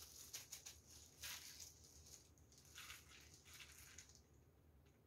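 Faint crackly rustling of plastic-gloved hands pressing a pumpkin croquette into a bowl of breadcrumbs, dying away about four seconds in.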